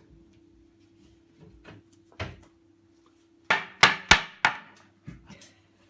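Hammer knocking: a lone tap, then a quick run of four loud knocks and two lighter taps near the end.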